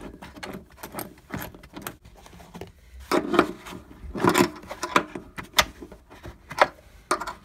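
Scattered sharp metallic clicks and rustling as a harness mounting bolt with washers is turned in by hand through floor carpet.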